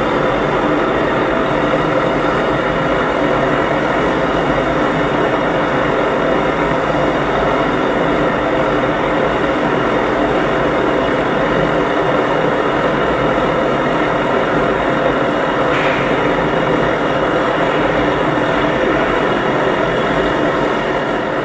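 Brass pressurised liquid-fuel blowtorch burning at full flame, a loud steady rushing noise that does not change.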